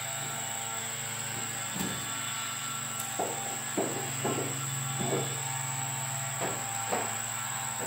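Light knocks and clunks, roughly one every half second to second, of heavy gear being shifted in a pickup truck's bed, over a steady low mechanical hum and a faint high whine.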